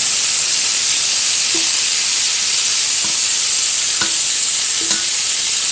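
Seasoned chicken pieces sizzling in hot olive oil in a pot as they start to brown, a steady loud hiss, with a few light knocks in the second half.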